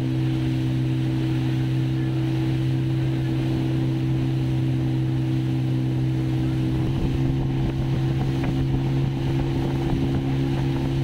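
Motorboat engine running steadily at cruising speed, a constant low hum, over the hiss of water rushing and foaming past the hull.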